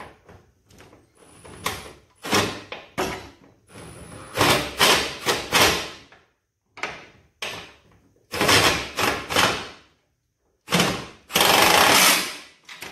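Milwaukee Fuel cordless impact gun driving a nut onto a carriage bolt through a 9/16 swivel socket on an extension. It runs in about a dozen short bursts, and the longest, loudest burst comes near the end as the nut is run down tight.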